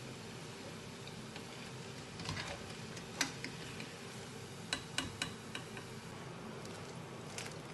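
Wire mesh skimmer clicking against a metal saucepan as fried fish cutlets are scooped out of hot oil. There are a few sharp taps, bunched together about halfway through, over a low steady hiss of frying oil.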